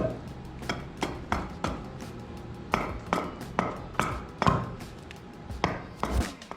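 Hatchet chopping a green hackberry table leg, a run of sharp strikes two or three a second with short pauses between groups, faceting the leg down to a point. Background music plays underneath.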